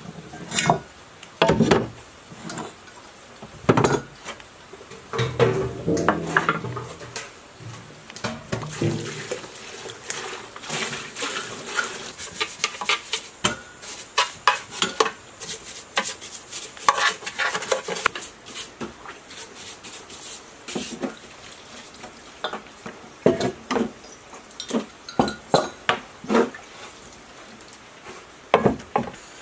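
Metal engine parts knocking and clinking as a small generator engine's crankcase and parts are handled and washed in a plastic tub of water, with splashing. In the middle stretch, a brush scrubs the crankcase gears with a dense scratchy sound.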